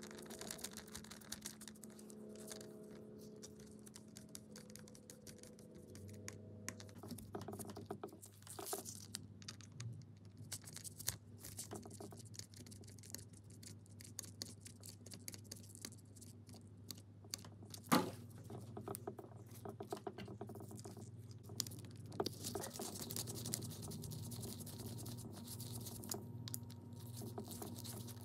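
Small precision screwdriver turning brass terminal screws and hands handling the drill's metal switch housing: a run of light irregular clicks, ticks and scratches, with one louder sharp click about eighteen seconds in.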